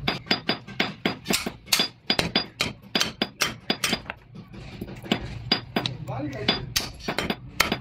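Steel hammer striking rivets on a truck brake shoe: a quick run of sharp metal-on-metal blows, several a second, each with a short ringing clink, easing off briefly about two seconds in.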